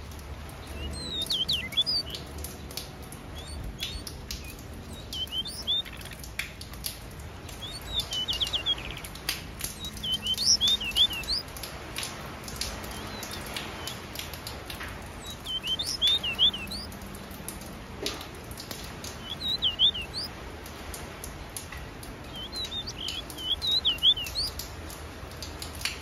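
Small cage finches chirping in short bursts of quick, high notes every few seconds, over a patter of faint clicks from beaks pecking seed.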